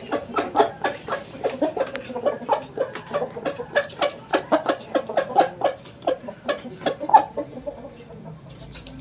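Chickens clucking: a rapid run of short clucks, several a second, that thin out near the end.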